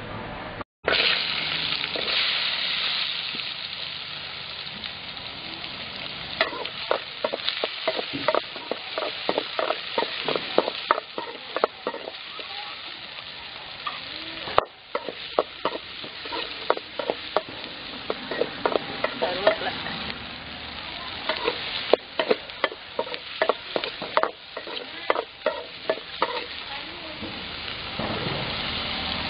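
Mustard seeds sizzling in hot oil in a steel kadai, then a metal spoon scraping and clicking against the pan as chopped shallots and green chillies are stirred and fried over a steady sizzle. The sound drops out briefly twice, near the start and about halfway.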